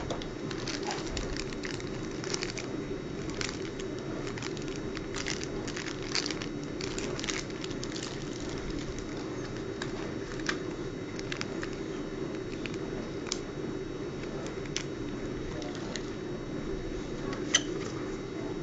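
Cardboard box and paper booklets being handled, giving scattered light crackles and clicks over a steady low hum. There is one sharper click near the end.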